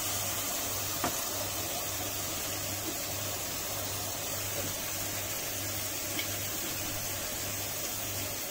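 Chopped onion, capsicum and masala sizzling steadily in oil and butter in an aluminium kadai over a high gas flame, with one light click about a second in.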